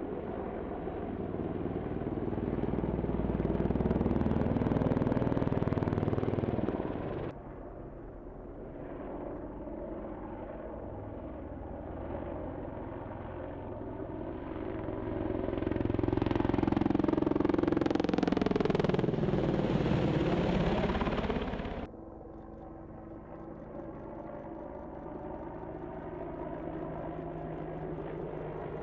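AH-64 Apache helicopter's rotors and turbine engines running as it flies past. The sound swells twice and breaks off abruptly at about seven seconds and again near twenty-two seconds. Around the second swell the pitch sweeps down and back up as the helicopter passes.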